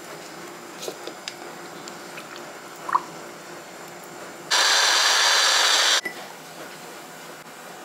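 Magic Bullet personal blender running in one short burst of about a second and a half, pulping leaves in milk; it starts and cuts off abruptly. A few light taps and clinks of the cup come before it.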